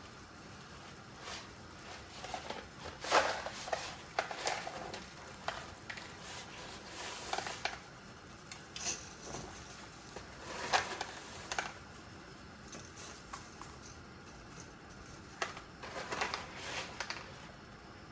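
Scattered clinks and taps of cooking utensils against pots and bowls, coming in small clusters over a low steady background hiss.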